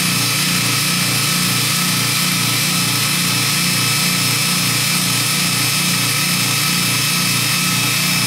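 Belt grinder running steadily: a 1/2 hp Baldor motor driving a 100-grit zirconia belt over a 10-inch expander wheel, grinding a steel fuller cold. A low hum pulses evenly under a steady high hiss.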